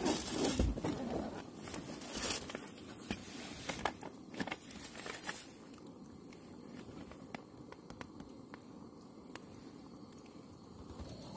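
Rustling and crinkling of material being handled, busiest and loudest in the first six seconds with many small clicks, then quieter with only occasional ticks.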